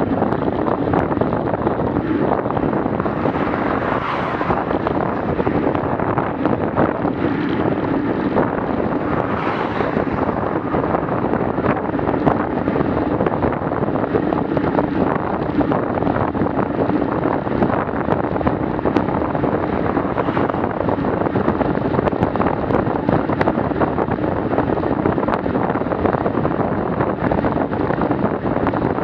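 Steady wind rush buffeting the microphone of a bicycle's handlebar-mounted action camera at about 30–37 km/h, mixed with the bike's tyre noise on asphalt.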